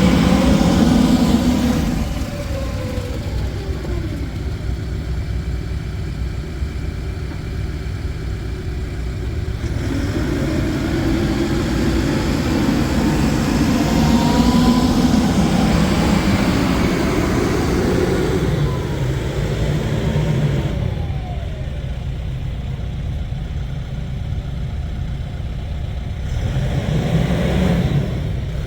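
Case 580N backhoe's diesel engine running, its speed rising and falling several times as the machine is worked, louder near the start, in the middle and near the end.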